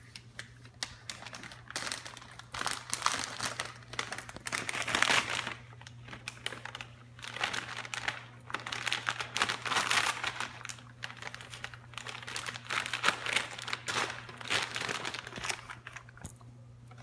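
Gift-wrapping paper crinkling and tearing in irregular bursts as a dog rips at a wrapped present with its teeth.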